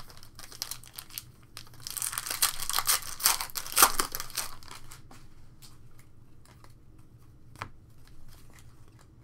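Foil wrapper of a Panini Prizm baseball card pack being torn open by hand, crinkling loudly for about three seconds, then a few faint ticks.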